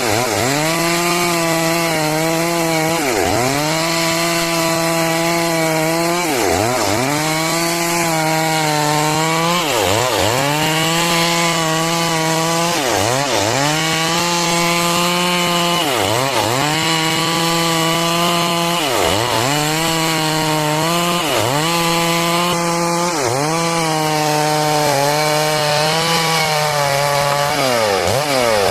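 Stihl MS 382 two-stroke chainsaw running at high revs while ripping a log into boards. About every three seconds the revs drop sharply and climb back up.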